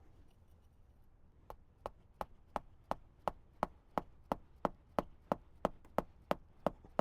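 A nail being hammered into the ground: steady, evenly paced strikes, about three a second, beginning about a second and a half in.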